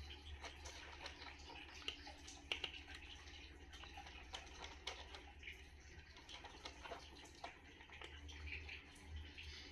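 A domestic cat chewing dry kibble from a plastic bowl: faint, irregular small crunches and clicks, a few louder ones about two and a half seconds in.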